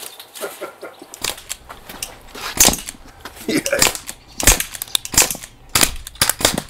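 Crosman 1077 CO2 air rifles firing side by side: a quick, uneven string of about ten sharp shots, starting just over a second in.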